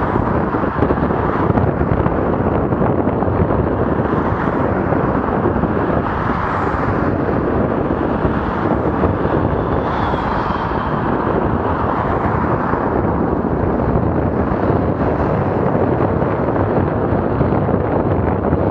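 Steady rushing noise of wind on the microphone and road noise while riding a bicycle.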